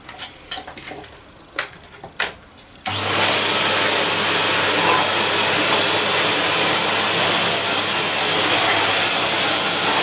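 Kitfort KT-559 stick vacuum cleaner switched on for the first time: after a few light knocks it starts about three seconds in, the motor spinning up with a quickly rising high whine that settles into a steady whine over a loud rush of suction air, running on as it is pushed over a rug.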